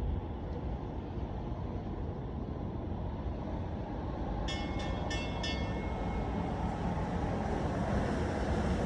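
Steady low rumble of ocean surf and wind. About halfway through come four short high chirps.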